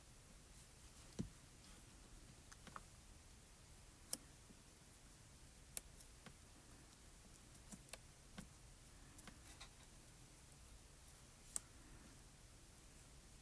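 Quiet room with scattered light clicks and taps, a handful of separate ones over several seconds, from small die-cut cardstock pieces and craft tools being handled and pressed together on a work surface.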